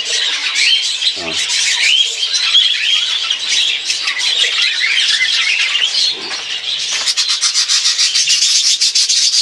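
A flock of budgerigars chattering, a steady dense run of quick warbling chirps that rise and fall. About seven seconds in, a fast, even scratching starts up over the chatter.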